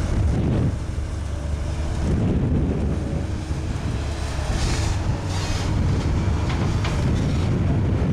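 Komatsu PC200 long-arm excavator's diesel engine running steadily under load as the boom digs and swings, with some wind noise on the microphone.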